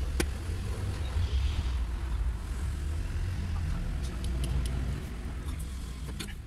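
A few light metallic clicks and taps from hands and tools working around an engine's exposed timing-belt sprockets, over a steady low rumble.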